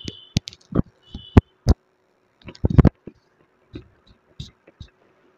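Close-miked crunching of white khadi edible clay being bitten and chewed: a run of sharp, dry crunches, densest about two and a half to three seconds in, then fewer and fainter.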